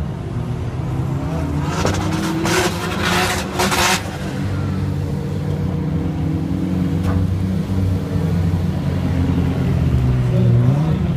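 Tuned hatchback race car's engine revving up and down under hard driving, with a cluster of sharp noise bursts about two to four seconds in and the revs climbing again near the end.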